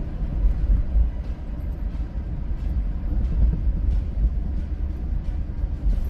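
Steady low rumble of a vehicle driving on a snow-covered road, heard from inside the cabin, with a few faint clicks.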